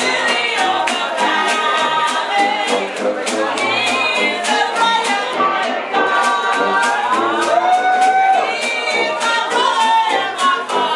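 Live New Orleans-style band with sousaphone and guitar playing a spiritual to a steady beat, with audience members singing along loudly close to the microphone.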